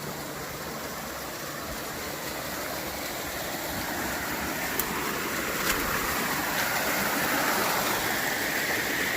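Small creek waterfall rushing and splashing, growing steadily louder, with two light clicks about five and six seconds in.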